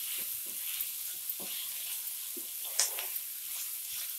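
Fenugreek leaves, onion and green chillies sizzling in oil in a nonstick kadai, stirred with a spatula that scrapes and taps against the pan now and then, with one sharper scrape about three seconds in.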